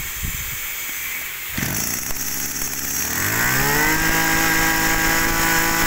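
Small brush cutter engine catches about a second and a half in and runs at low speed, then is throttled up in a smooth rise to run steadily at high speed.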